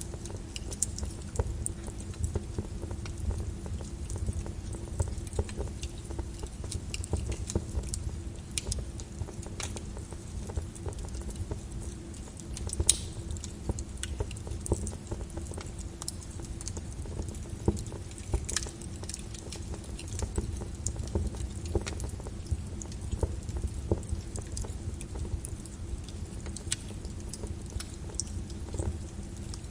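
Wood fire crackling in a fireplace: a steady low rumble with irregular pops and snaps, two of them louder, around the middle.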